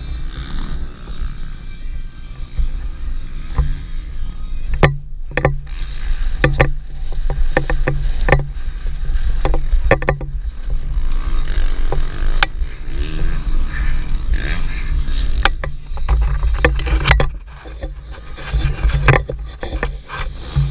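Wind buffeting the action camera's microphone in a steady low rumble. Over it come sharp clicks from the DSLR rig the camera is mounted on, several in quick runs, and faint motorcycle engines rising and falling.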